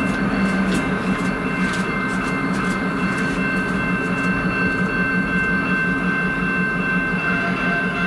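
Diesel freight train running past: steady locomotive engine pulse with a constant high-pitched whine over it, and a few clicks from the wheels in the first couple of seconds.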